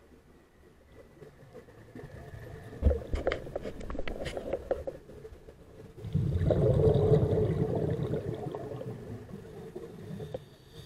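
A scuba diver's exhaled bubbles leaving the regulator, heard through an underwater camera housing. A crackle of bubbles comes about three to four seconds in. A louder burst of bubbling starts suddenly at about six seconds and fades over the next few seconds.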